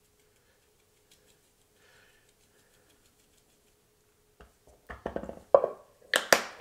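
Onion powder shaken faintly from a spice jar into a silicone bowl, followed by a series of sharp clicks and knocks as the jar is handled and set down on a wooden cutting board, the loudest knock near the end.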